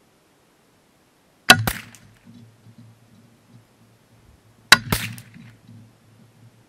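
Two shots from a Savage 64F semi-automatic .22 LR rifle, about three seconds apart. Each is followed a fraction of a second later by a second sharp crack.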